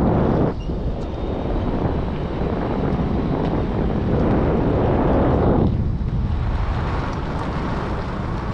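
Wind buffeting the microphone of a camera on a moving vehicle, over the low rumble of the vehicle and its tyres. The wind noise eases about five and a half seconds in, leaving mostly the low road rumble.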